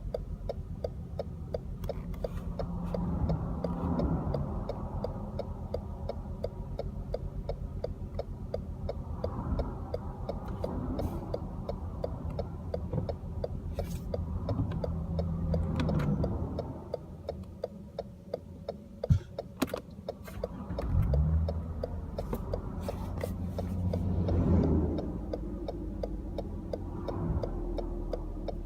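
2013 Lexus GS350's 3.5-litre V6 running roughly with a fast, steady ticking over its low drone, the engine note shifting up and down a few times: the sound of a misfire that sets the check engine light flashing.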